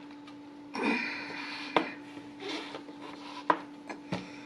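A knife cutting food on a cutting board: a few sharp knocks, the sharpest about two seconds in and again about three and a half seconds in, between softer scraping and rustling. A steady low hum runs underneath.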